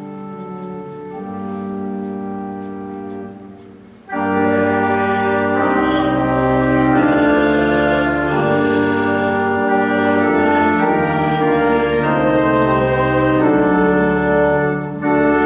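Church organ playing a hymn tune. It starts softly, swells to a much louder, fuller registration about four seconds in, and deep bass pedal notes join a moment later.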